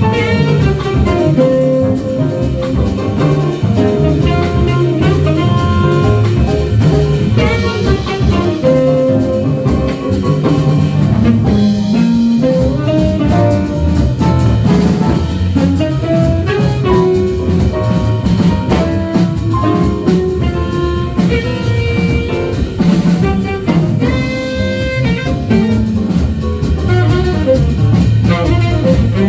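Jazz band playing live: a melody of held, moving notes over drums.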